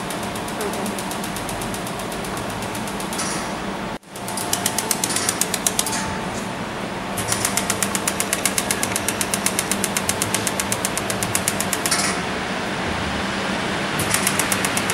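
Pulsed fiber laser welder firing a rapid, regular train of pulses, each a sharp tick, several a second, in runs broken by short pauses, over a steady machine hum.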